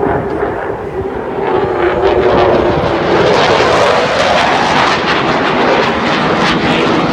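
Military fighter jet flying past low, its engine roar swelling about two seconds in and staying loud. A steady tone in the roar sinks slightly in pitch over the first three seconds.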